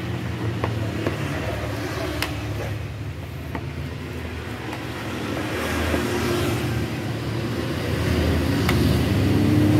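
A low, steady engine hum, growing louder over the last few seconds, with a few faint clicks of a spoon against a plastic bowl as thick ground bait is stirred.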